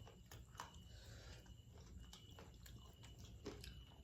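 Faint chewing and biting: a person eating, with irregular small mouth clicks and crunches.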